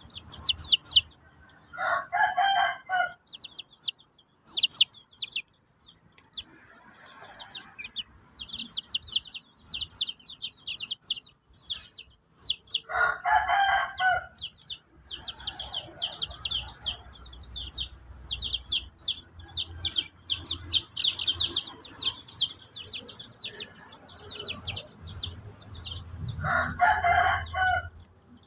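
Chicks peeping rapidly and almost without pause, high and thin, while a rooster crows three times, each crow about a second long: about two seconds in, around the middle, and near the end.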